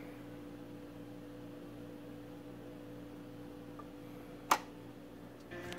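Steady low hum while the Dual 1219 idler-drive turntable runs. About four and a half seconds in there is one sharp click as the stylus lands on the record, and music starts from the record just before the end.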